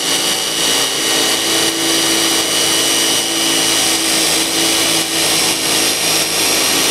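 Power tools boring 14 mm diamond core bits into red brick: a steady, loud motor whine over a gritty grinding noise, without a break.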